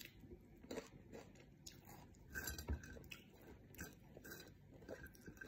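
Close-up chewing of fried rice and crispy fried anchovies: faint crunches and wet mouth clicks at irregular intervals.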